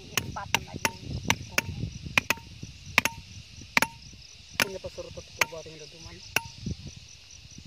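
A hammer striking the top of a thin steel rod, driving it into the soil. There are about a dozen sharp metallic blows, each with a brief ring, coming quickly at first and then more slowly.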